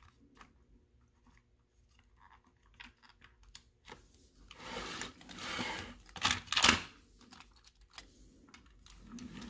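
Hands working the plastic chassis of a dismantled toy steam locomotive: scattered light clicks, then rubbing and two sharp scrapes about six and a half seconds in.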